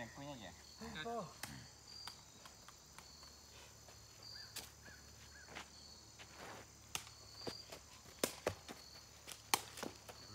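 Insects chirping steadily in the background: a continuous high whine with short high chirps repeating about once a second. There is a brief voice at the start and a scattering of sharp clicks or taps in the second half.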